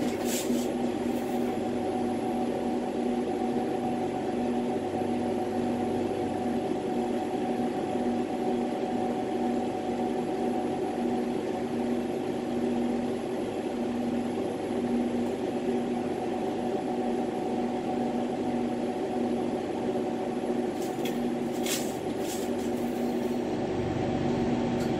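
Steady hiss and machine hum of a lampworking bench with its glassworking torch burning. A few faint clicks come near the end.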